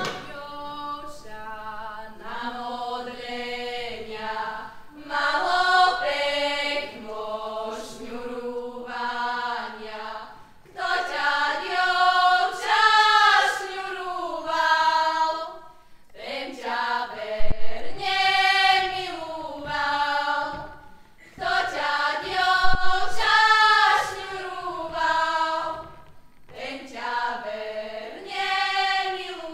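A group of young women singing a Slovak folk song together, phrase by phrase, with short pauses for breath between the phrases.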